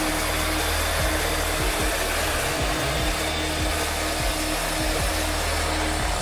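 Heavy diesel engines running steadily under load, a dense, unchanging noise, while a truck bogged in deep mud is towed out on a cable.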